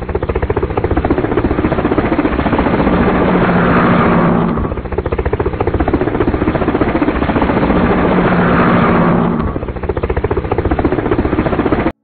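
Loud, very fast mechanical chattering with a steady pulse, swelling twice about five seconds apart, then cutting off abruptly near the end.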